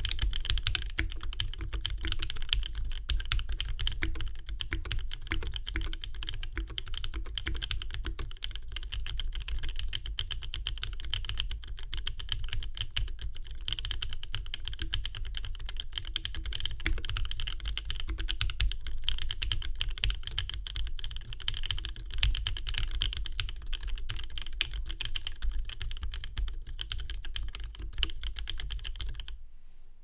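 Continuous typing on a mechanical keyboard with lubed, filmed linear switches (Gateron Black Ink housings with Kailh red stems) in a zebrawood plate and a polycarbonate Mekanisk Klippe T case, with GMK Hammerhead ABS keycaps. The keystrokes stop just before the end.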